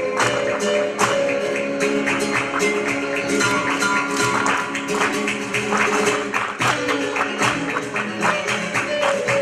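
Flamenco music: guitar and held notes over a dense run of rapid, sharp percussive strikes.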